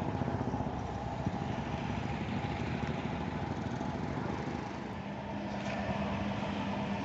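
Roadside traffic noise: vehicle engines running steadily, with a low hum coming in about five seconds in.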